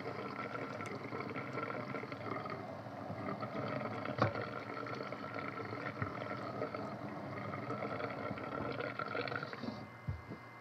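Cold tap water running from a kitchen faucet into a stainless steel sink as raw chicken pieces are rinsed by hand under it; the running water cuts off near the end. A single sharp knock about four seconds in.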